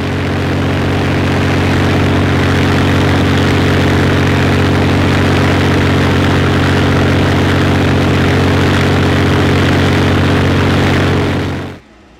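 The Voodoo P-51 Mustang's Merlin V-12 engine running steadily on the ground, turning the propeller. The sound cuts off abruptly just before the end.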